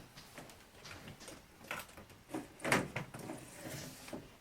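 A few scattered knocks and bumps as a replacement double-hung window is handled and set into its frame opening, the loudest knock about two and a half seconds in.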